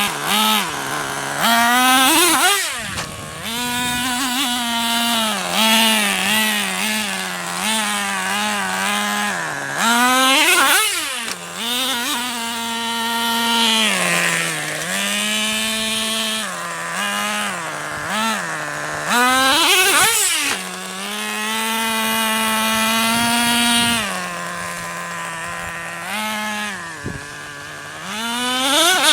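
Radio-controlled car's small engine running and revving: its pitch holds steady for stretches, then sweeps sharply up and drops back several times, around two, ten and twenty seconds in and again at the end.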